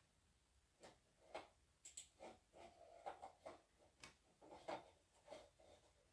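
A series of faint, irregular clicks and light knocks, about a dozen over four or five seconds, like small objects being handled.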